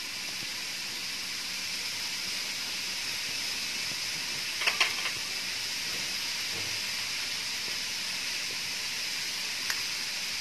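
Grated radish with salt and turmeric frying in olive oil in a pan, a steady sizzle. A couple of short clicks about halfway through.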